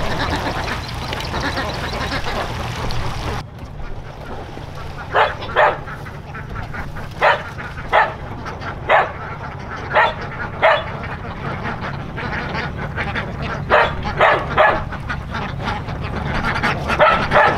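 A flock of white domestic ducks quacking on a pond, first as a dense chorus. After a sudden change about three seconds in, the chorus thins to a dozen or so separate loud single quacks at uneven spacing, some in quick pairs and triples.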